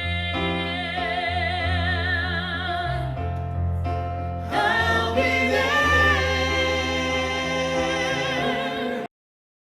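Live duo music through Rockville Titan portable column array speakers: a melody of long held notes with wide vibrato over a steady bass line. The music cuts off abruptly about nine seconds in.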